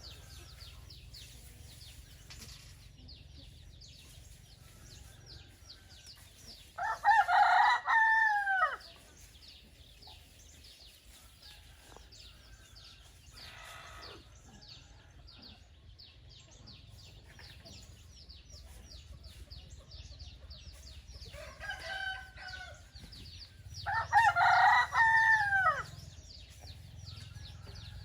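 A rooster crowing twice, each crow loud and about two seconds long, with a fainter call shortly before the second crow.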